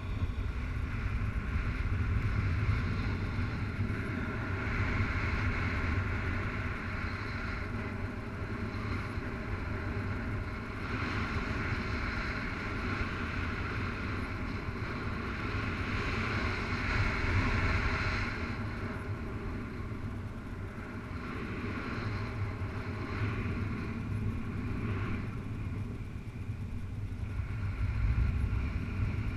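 Wind rushing over the camera microphone of a paraglider in flight: a steady low rumble with a hiss that swells and eases several times.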